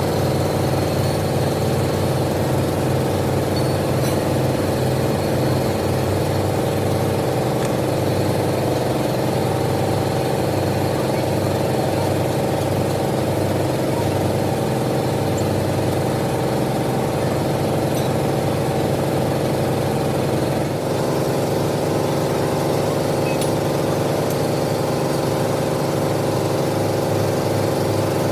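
A heavy workshop machine running with a steady drone; its tone changes abruptly about three quarters of the way through.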